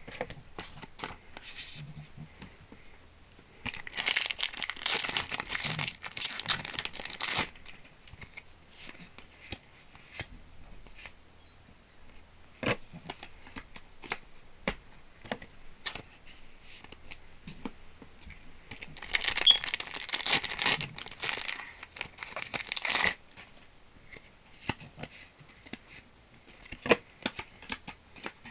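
Foil Yu-Gi-Oh booster pack wrappers being torn open and crinkled, in two loud stretches of about three and a half seconds each: one about four seconds in, the other about nineteen seconds in. Between them are light clicks and taps of cards being handled.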